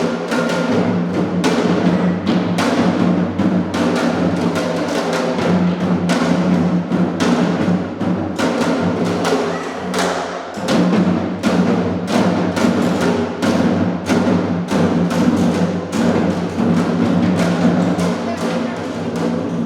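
Percussion-led music: dense, rapid drum strikes over a sustained low tone, the low tone dipping briefly about halfway through.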